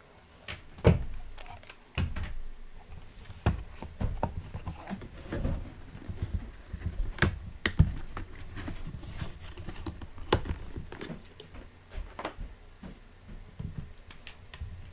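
Hands handling a new laptop and its packaging, making irregular clicks, taps and knocks with some rustling, the sharpest about a second in and near the middle.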